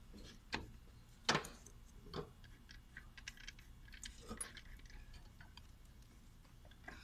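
Scattered light clicks and taps from automatic gearbox parts being handled and fitted, the loudest about a second and a quarter in, with a run of small ticks a little past the middle.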